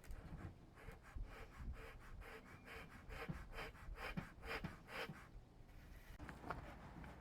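Bee smoker's bellows pumped in quick puffs of air, about four a second, to get the pine-needle fuel smoking; the pumping stops about five seconds in.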